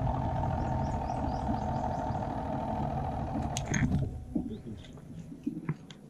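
Small boat motor running steadily, then cutting off about four seconds in. Scattered light clicks and knocks of a fishing reel being handled follow.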